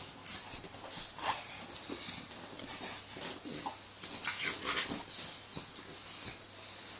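French bulldog puppy making short, scattered little vocal noises while play-biting and wrestling with a hand, a few brief higher squeaks around the middle.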